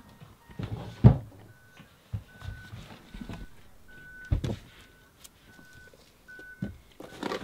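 Hurried packing by hand: things are grabbed, thrown down and knocked about, giving a string of thumps and rustles, the heaviest about a second in. A faint high beep repeats in short dashes underneath.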